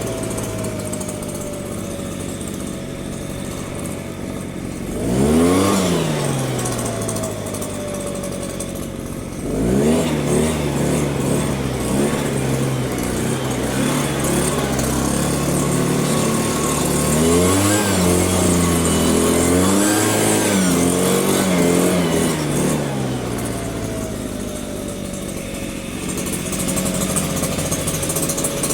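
Small two-stroke engine of a handheld petrol garden tool, the string trimmer or the leaf blower. It idles, is revved briefly about five seconds in, then is revved up again and held at high speed with a wavering pitch. Near the end it drops back to idle, with a whine falling as it spins down.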